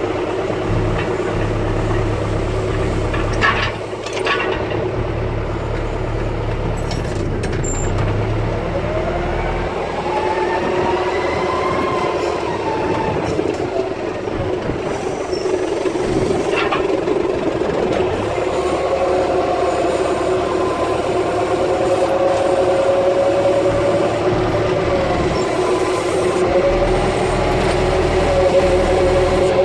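John Deere 6320 tractor's diesel engine running while carrying bales, its pitch rising and falling as the revs change, heard from the driver's seat. A few short knocks and rattles come about three to four seconds in.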